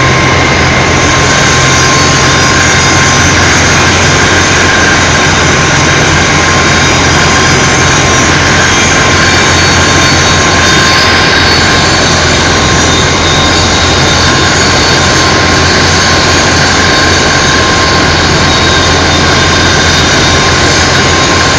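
Non-slip aluminium rod breakdown (wire-drawing) machine running at working speed: a loud, steady mechanical roar with constant whining tones over it.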